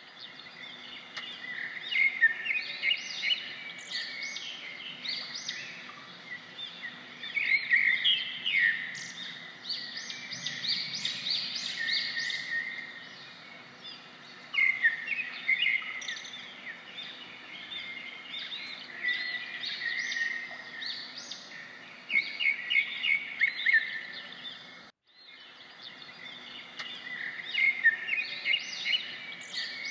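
Many small birds chirping and singing together, a dense chorus of short overlapping calls and trills. It drops out suddenly for a moment about 25 seconds in, then resumes.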